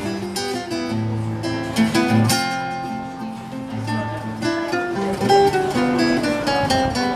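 Acoustic guitar playing a tune of plucked single notes with a few strummed chords.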